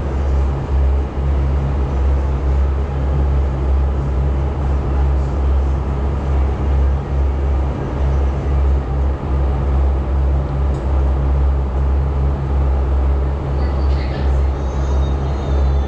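Boat launch's engine running steadily under way, a loud low drone heard from inside the cabin.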